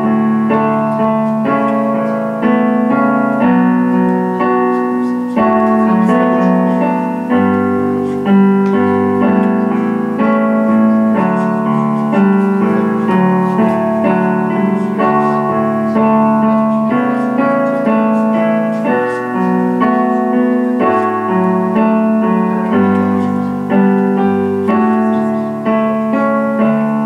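Digital piano playing a slow accompaniment of held chords, with a melody on top moving from note to note every second or so.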